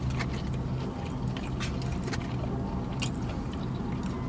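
Chewing and biting food, with small wet clicks and crackles, over a steady low hum.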